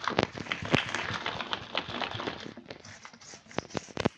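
Thick batter being stirred by hand in a metal bowl: wet squelching with irregular clicks and knocks of the utensil against the bowl. The stirring thins out after about three seconds, with a few sharper knocks near the end.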